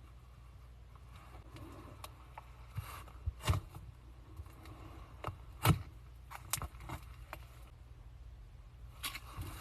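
Slime being squeezed and stretched by hand, giving irregular sticky clicks and pops over a low hum. The loudest pop comes about five and a half seconds in.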